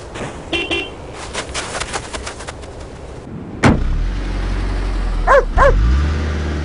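Snow crunching and crackling as a dog rolls on its back in it, then a sudden sharp sound and the steady low hum of a running car, with two short dog barks over the hum.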